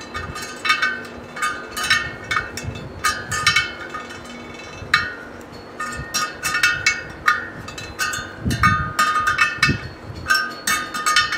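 Sharp metallic clinks, each ringing briefly, at an uneven pace of about two a second, from a spoke wrench against the steel spokes and nipples of a laced motorcycle wheel as the spokes are tightened for truing. A couple of duller knocks come near the end.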